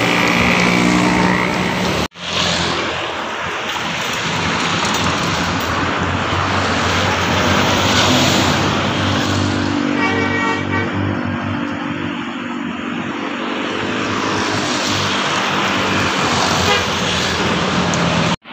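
Indonesian bus 'telolet' horns, multi-tone musical air horns playing stepped toots over the steady noise of a bus engine and road traffic. The clearest horn phrase comes about ten seconds in.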